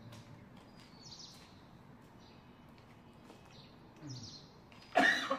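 Small birds chirping now and then in the background, a few short high chirps. A short, loud sudden sound cuts in near the end.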